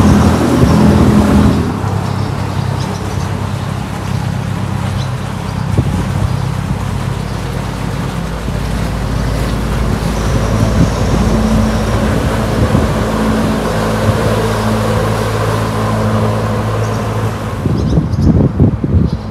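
Engines of motor cruisers running as they pass along the river: the first fades about a second and a half in, and the next grows louder from about ten seconds in. Under them is a steady rumble of road traffic on the bridge overhead, with wind buffeting the microphone near the end.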